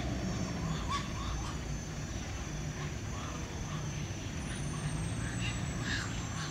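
Outdoor ambience: a steady low rumble of distant traffic and a steady high-pitched whine, with short bird chirps scattered throughout.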